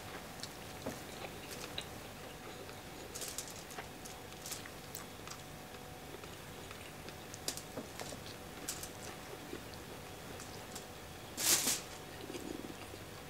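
Eating sounds of a person eating fried fish and jollof rice by hand: scattered small clicks and smacks of chewing and fingers picking at the food, with one louder noise about a second and a half before the end.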